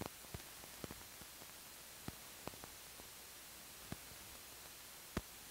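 Faint steady hiss with scattered clicks and pops, about a dozen at irregular intervals, from the soundtrack of an old 1970 film print.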